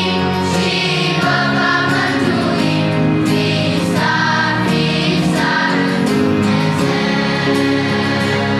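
Children's choir singing a Christian song in Romanian together, with instrumental accompaniment.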